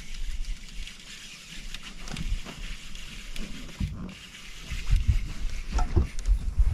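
Water sloshing and low thumps and knocks around a boat while a hooked smallmouth bass is played on a bent rod, with a steady high hiss behind. The thumps grow busier from about five seconds in, as the fish fights hard.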